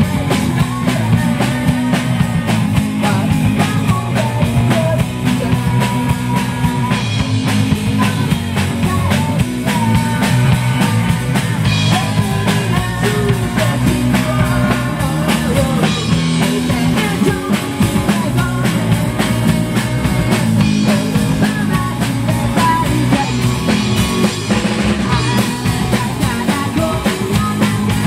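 A live rock band plays loud and without a break: a woman sings into a microphone over electric guitar and a drum kit.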